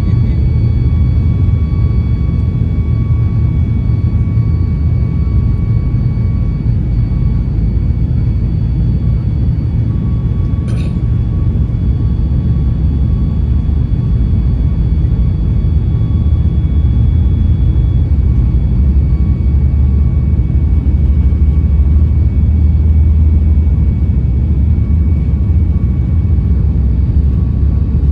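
Boeing 737 MAX 8 cabin noise: a loud, steady, deep rumble of the airliner with faint steady whining tones above it. A single brief click comes about eleven seconds in.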